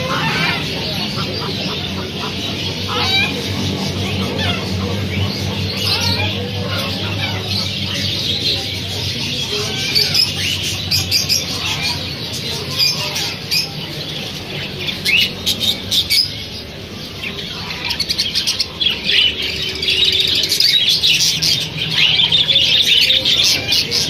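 Many caged birds chirping and squawking, with short calls scattered throughout and thickening into a dense, louder chatter in the last few seconds. A low steady hum runs underneath for most of it.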